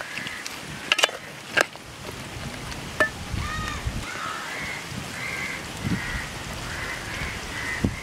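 A metal ladle knocks against an aluminium cooking pot a few times as a thick curry is stirred. From about three seconds in, a bird calls over and over in short, harsh, evenly repeated calls.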